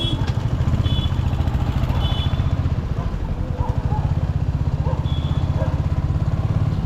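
Royal Enfield Hunter 350's single-cylinder engine running steadily under way, its exhaust giving an even, rapid low thump. A few short high beeps sound over it, about one, two and five seconds in.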